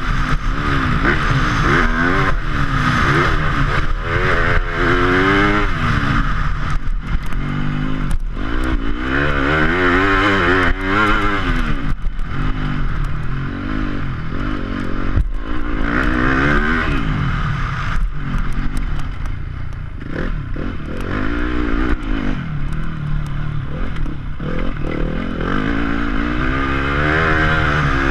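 Yamaha YZ250F 250 cc four-stroke single-cylinder motocross engine revving up and down over and over as the bike accelerates, shifts and slows around the track. Scattered knocks and clatter run through it.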